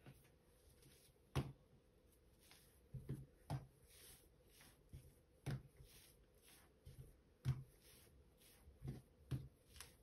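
Soft, irregular thumps and taps of hands rolling and pressing soft dough strands against a wooden tabletop, about ten in all, the loudest about a second and a half in and again about three quarters through.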